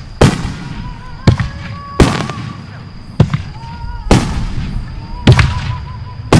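Aerial fireworks shells bursting one after another: about seven sharp bangs, roughly one a second, each trailing off in a crackle, over a steady high tone.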